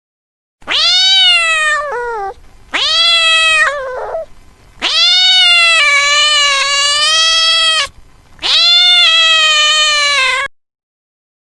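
A cat meowing four times, each call sweeping up in pitch at the start and then easing down; the third call is long and drawn out.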